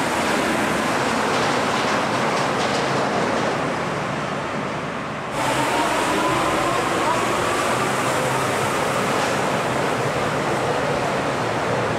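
Paris Métro train rumbling loudly along the station platform, with a faint electric motor whine. The sound cuts off abruptly about five seconds in, and a train is heard again with its whine slowly rising as it gathers speed.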